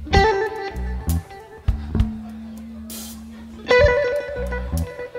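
Background blues music: electric guitar phrases over a steady bass line, with a new phrase and a wavering held note starting a little before the end.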